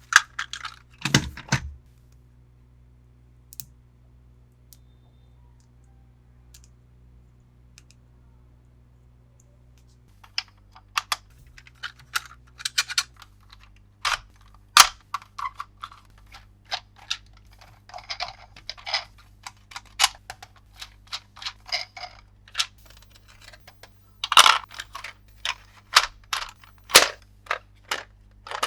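Sharp clicks and taps of hard plastic toy parts and packaging being handled, with a few short crinkling rustles. There is a quiet stretch of several seconds near the start, then the clicks come often and irregularly.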